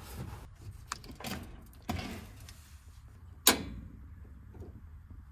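Knocks and clunks of a portable stainless-steel camping oven being shifted into place and its lid and knobs handled, with one loud sharp clack about three and a half seconds in, over a steady low rumble.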